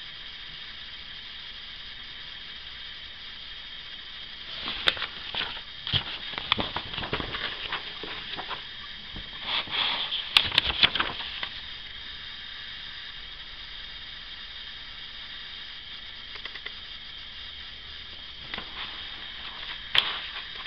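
Paper pages being turned and handled, rustling and crinkling in two spells about five and ten seconds in, over a steady hiss. A single sharp click comes near the end.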